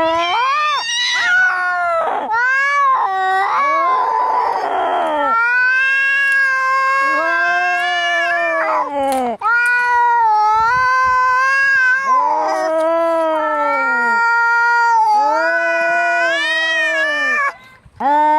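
Angry cats caterwauling as in a fight: a run of long, drawn-out yowls that waver up and down in pitch, one after another. A harsh hiss comes about four seconds in.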